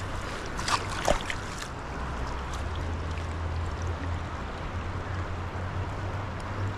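Steady rush of flowing stream water, with a low rumble underneath and a couple of faint clicks about a second in.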